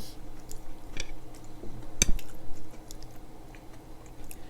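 Close-up eating sounds: soft chewing with a few small clicks, the sharpest about two seconds in.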